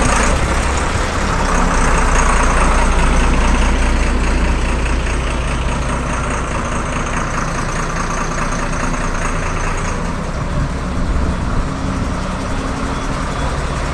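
Truck's diesel engine idling steadily, a continuous low hum with no revving.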